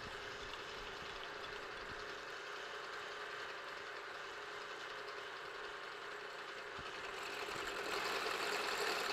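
Precision Matthews PM-727 milling machine running steadily with the end mill spinning. From about seven seconds in, a louder hissing grind builds as the end mill is fed into the workpiece and starts cutting.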